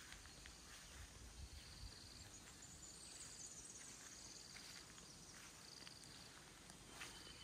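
Faint early-morning bush ambience: distant birds and insects calling, with high trills about three seconds in and again near six seconds, and a few soft ticks.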